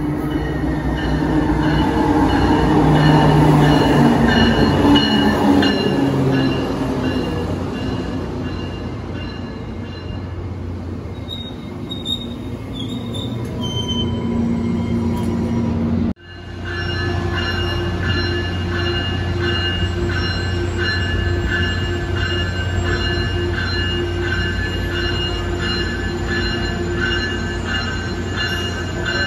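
Tri-Rail commuter train arriving: the diesel locomotive passes close with its engine and wheel noise, loudest a few seconds in, then the bilevel coaches roll by with steel wheels squealing on the rails. After an abrupt cut about sixteen seconds in, a train led by a bilevel cab car rolls slowly along the platform with a steady, high squeal over a low hum.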